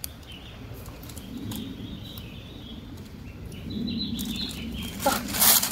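Birds calling in woodland: a low, humming call comes twice among short high chirps. A brief loud rustle comes near the end.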